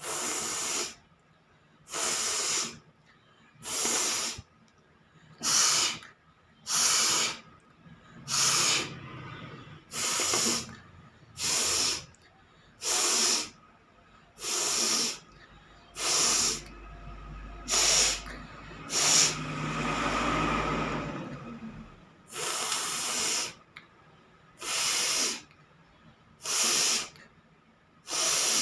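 A person sharply forces air out through the nose again and again, one short hissing blast about every second and a half. About two thirds of the way through there is one longer blow of a few seconds with a low rumble under it.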